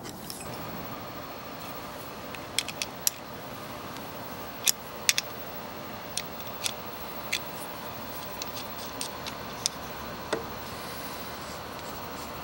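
Sharp metallic clicks and clinks of a steel plane iron and metal sharpening jig being handled, fitted and adjusted on a sharpening machine's jig bar, about fifteen scattered irregularly, over a steady low background noise.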